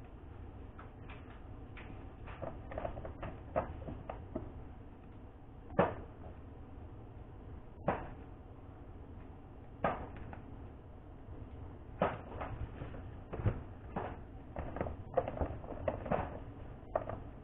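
Irregular light knocks and clicks of small hard objects being handled and set down on a hard surface, the louder ones about every two seconds, over a low steady hum.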